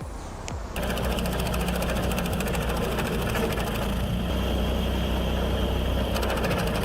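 Diesel engine running steadily with a fast, even clatter, cutting in abruptly about a second in; it is the engine that drives a heavy-flywheel wood chipper.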